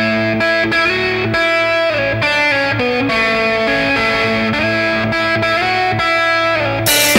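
Distorted electric guitar opening a blues-rock track, playing a line of held, ringing notes. The drums come in with a crash near the end.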